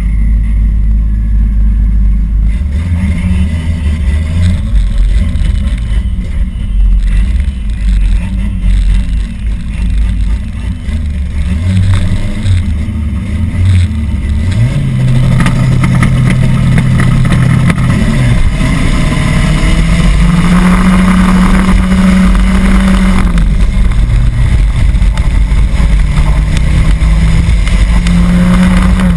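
Drag-racing car engines running loud, the engine note stepping up in pitch about halfway through and again about two-thirds in, then held steady at high revs.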